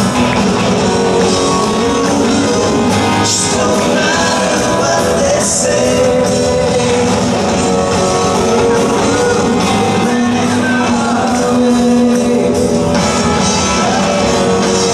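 Live rock band playing: electric guitars, bass guitar and drum kit with a male lead vocal, loud and steady throughout.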